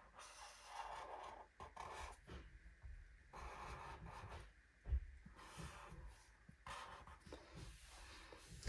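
Marker pen rubbing on paper in a series of faint drawing strokes, each about a second long, with one soft knock about five seconds in.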